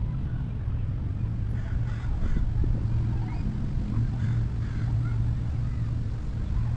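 Wind rumbling on the microphone, with a steady low hum underneath that swells about four seconds in.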